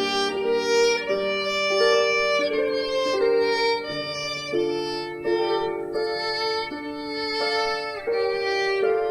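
Violin music: bowed notes held with vibrato, several lines sounding together and changing about once a second.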